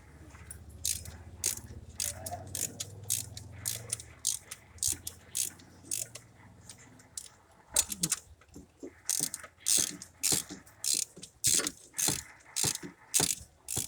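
Mechanical ratcheting and clicking, with a low steady hum in the first half; from about eight seconds in it turns into loud, evenly repeated rasping strokes, about two a second.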